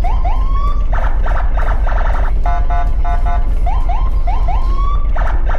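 Toy police car's electronic siren sound unit playing a looping siren pattern. Each cycle runs a burst of quick beeps, a string of upward whoops and a rising wail, then fast stuttering pulses, and the cycle repeats about every three and a half seconds.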